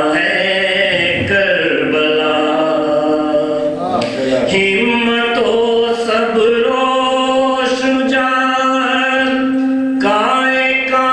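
A man chanting an Urdu noha, a lament for Karbala, solo and without instruments into a microphone, in long drawn-out notes.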